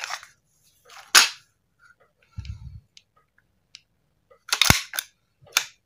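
Sharp metal clacks and clicks as a chrome WE Beretta M9A1 gas blowback airsoft pistol and its magazine are handled over an aluminium hard case: one loud clack about a second in, a short low knock midway, and two more loud clacks near the end.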